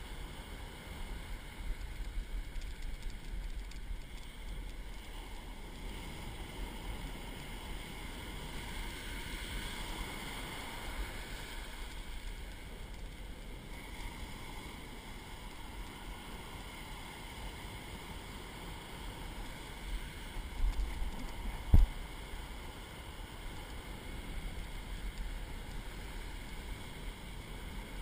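Ocean surf breaking and washing up the beach, with wind rumbling on the microphone. A single sharp low thump, the loudest sound, comes about three quarters of the way through.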